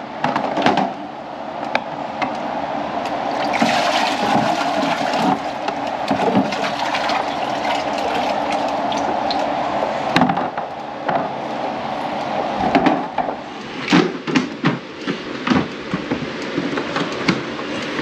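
Dirty drain-line water rushing and splashing as the tank of a DeWalt cordless wet/dry vac is emptied, for about thirteen seconds. It is followed by a run of hard plastic clicks and knocks as the vac's head is handled and latched back onto the tank.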